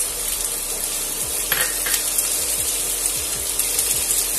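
Freshly added chopped onions sizzling in hot oil in a nonstick kadhai, with a spatula stirring them through the pan.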